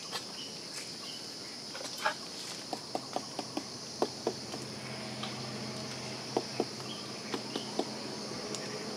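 Insects buzzing steadily at a high pitch, with a string of light knocks and clicks from about three seconds in.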